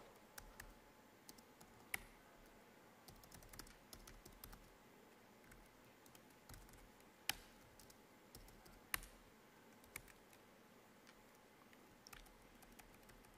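Faint typing on a laptop keyboard: scattered soft keystrokes with a few sharper clicks.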